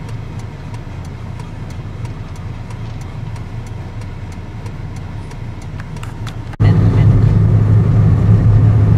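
Car engine and road noise heard inside the cabin: a steady low hum with faint regular ticking, which jumps abruptly much louder about six and a half seconds in as the car drives along the road.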